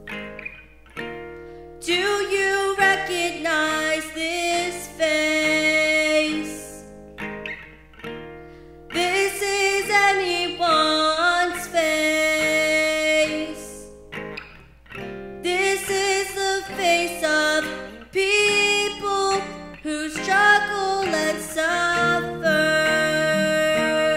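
A solo voice singing a musical-theatre song in phrases a few seconds long with short breaks between them, over plucked guitar accompaniment.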